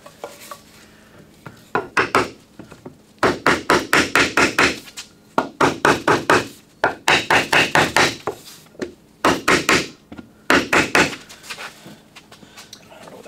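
Hammer tapping on a wooden block set on the top edge of a windshield glass, driving the glass down into its rubber seal in the steel frame. The strikes come in quick runs of about four a second, with short pauses between the runs.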